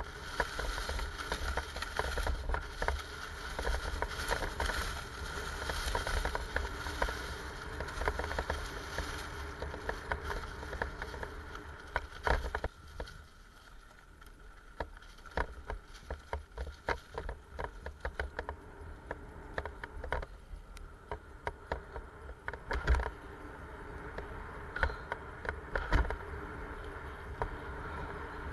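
Mountain bike riding downhill on a forest trail: tyres rolling over dry leaves and dirt with a steady rushing noise, the bike rattling and clicking over bumps. It is quieter after about twelve seconds, with scattered rattles and two harder knocks near the end.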